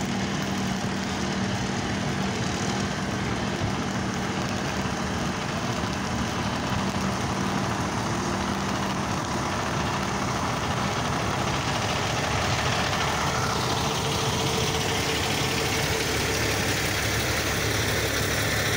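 Heavy diesel tanker truck engine idling steadily close by, over a continuous background hiss of traffic on a wet road.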